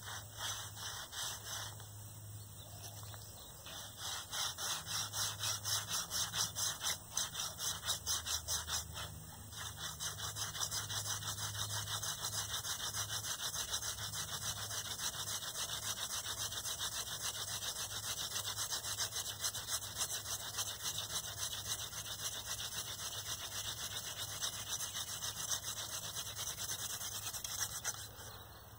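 Hand-drill friction fire: a wooden spindle spun back and forth between the palms grinds into a wooden fireboard with a rhythmic rubbing scratch. After a brief pause about ten seconds in, the strokes come faster and evenly, stopping just before the end, as the drilling builds heat toward an ember.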